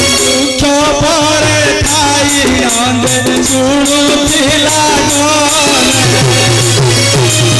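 Loud live stage music: an ornamented, wavering melody over drums and a rattle, with the drum beat coming back strongly about six seconds in.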